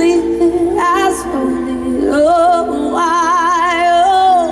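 Live rock band: a female lead vocal sings long held notes with wide vibrato, sliding between pitches, over sustained chords from the band.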